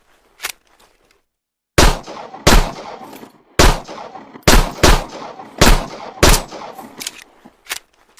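Homemade sound effect imitating M1911 pistol shots: seven sharp bangs, irregularly spaced, each with a short fading tail, and a couple of lighter clicks before and after them.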